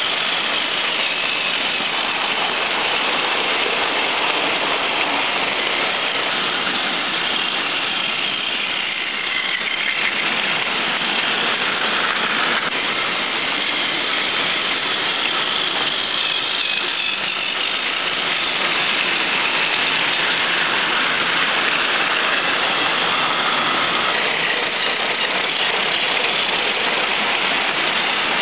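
Several battery-powered Tomy Plarail toy trains running at once on plastic track: a steady, dense whir of small geared motors with the clatter of plastic wheels over the rail joints.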